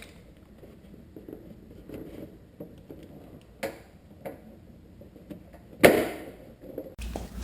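A few sharp knocks and clicks of car parts being handled, the loudest about six seconds in, over a quiet background.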